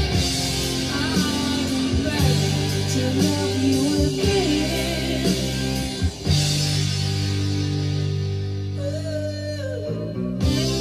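A song with singing and guitar, played back from cassette on a Tandberg TCD440A tape deck.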